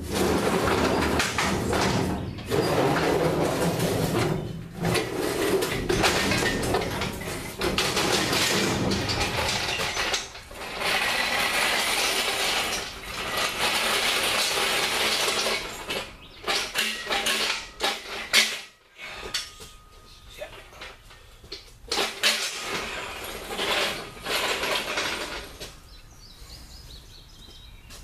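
Steel engine hoist being pushed on its casters, clattering and scraping with metal rattling. The noise is continuous for over half the time, then breaks into short bursts and stops a couple of seconds before the end.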